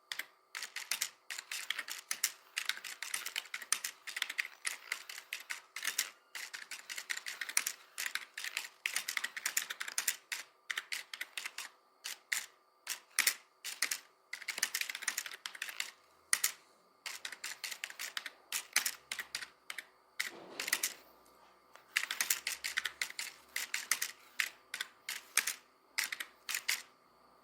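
Computer keyboard typing: rapid runs of key clicks in irregular bursts, with brief pauses between them.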